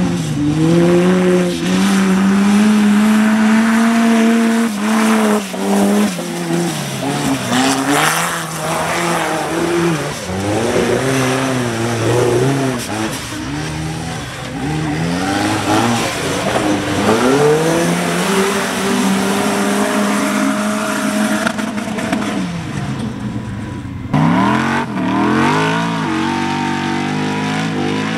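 Formula Offroad buggy engines revving hard. The pitch climbs and drops again and again as the wheels spin in loose dirt on a steep hill climb. About 24 seconds in the sound cuts off abruptly, and another buggy's engine starts revving.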